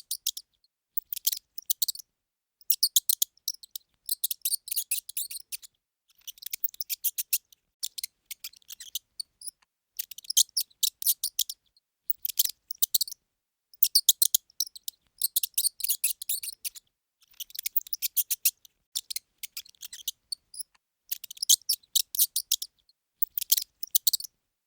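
Mouse squeaking: rapid trains of high-pitched squeaks in short bursts, each lasting about a second, with brief pauses between them.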